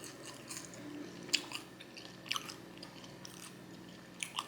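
A person chewing food close to the microphone, with short, irregular mouth clicks over a faint steady hum.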